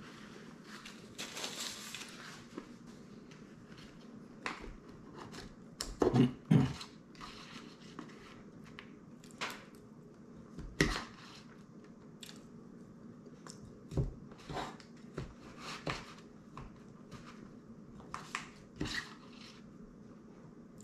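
A person eating berry pie: chewing and mouth sounds mixed with a spoon and fork clicking and scraping against the pie dish, in irregular short knocks, the loudest about six seconds in.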